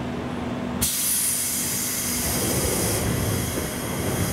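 Pneumatic door gear of a JNR 201 series electric train car hissing as compressed air is let through to close the doors. The loud hiss starts suddenly about a second in and runs about four seconds, over a steady low hum that stops about halfway through.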